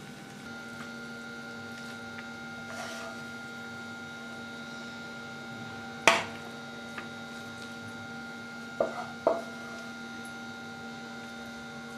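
A serving spoon knocking and scraping against a bowl a few times as sticky vermicelli kesari is spooned in, the sharpest knock about halfway through and a quick pair near the end, over a steady background hum.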